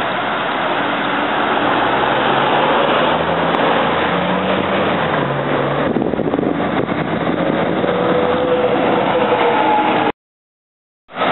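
Diesel city transit bus running as it pulls through an intersection and turns past close by, its engine note rising and falling over steady traffic noise. The sound cuts off abruptly near the end.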